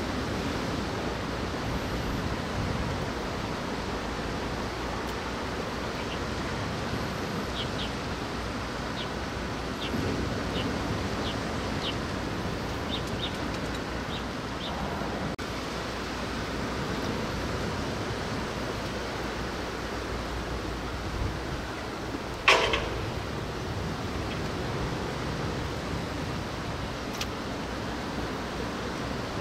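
Steady wind and rain noise, with a scattered run of light ticks, one sharp knock about three-quarters of the way through and a fainter click a few seconds later.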